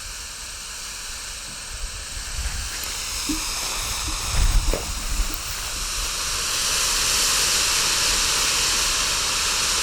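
Boomer Desert Smoke firework burning, a steady hiss of smoke venting that grows louder about six seconds in. A brief low rumble of wind on the microphone about four and a half seconds in.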